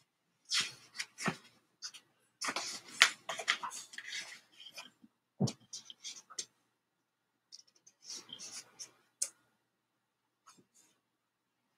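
Handling sounds: irregular rustling and light clatter, a dull knock about halfway through, then the pages of a paperback book being leafed through.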